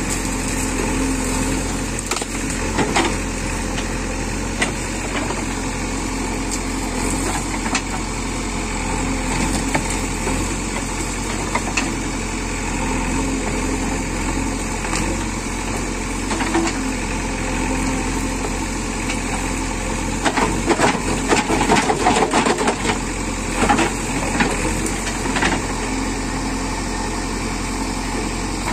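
JCB 3DX backhoe loader's diesel engine running steadily at low revs, with a burst of sharp clattering knocks about two-thirds of the way through.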